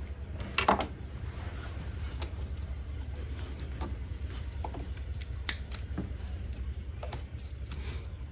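Small clicks and knocks of ignition-coil parts and tools being handled, with a sharp click about five and a half seconds in, over a steady low hum.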